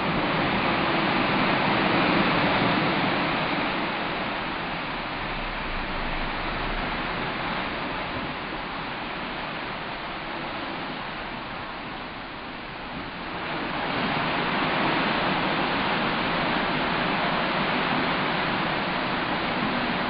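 Sea water rushing and churning along the hull of a moving cruise ship, a steady hiss of foaming wash. It swells about two seconds in, eases off, and grows louder again past the halfway mark.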